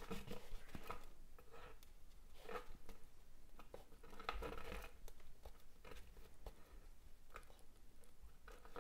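Waxed polyester threads being worked into micro-macramé knots: faint, irregular rustling and scratching as the threads are drawn through the fingers and pulled tight, with hands brushing the hardboard macramé board.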